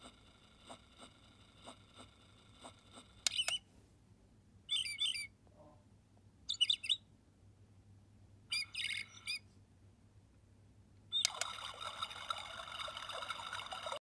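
Recorded birdsong from a night light's nature-sound track: four short bursts of high chirping. Faint, evenly spaced ticks come first, and a denser, hissy stretch with chirps sets in near the end.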